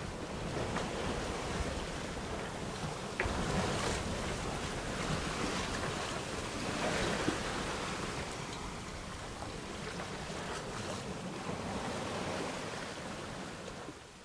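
Water hissing past the hull of a sailboat under way, with wind buffeting the microphone; the sound fades out at the very end.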